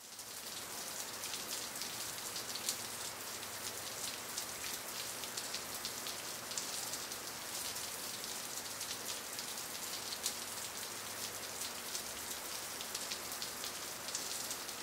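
Steady water sound, a dense fine crackling patter like rain or shallow water running over gravel, with a couple of slightly louder pops.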